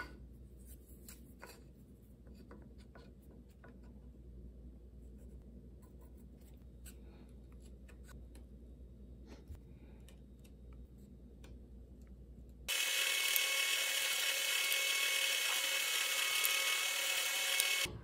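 Pencil and awl marking small wooden pieces on a metal saw table: faint scratches and light taps over a low steady hum. About thirteen seconds in, a drill starts boring dowel holes in the wood: a loud, steady high whine for about five seconds that cuts off sharply.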